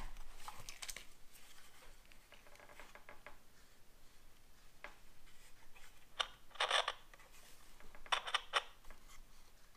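Small plastic pocket AM radio being handled and turned over: a few short plastic clicks and rattles, with a louder burst of clicking about six seconds in and another around eight seconds in.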